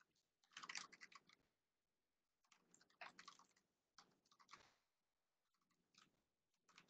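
Faint typing on a laptop keyboard, in a few short bursts of clicks with near silence between.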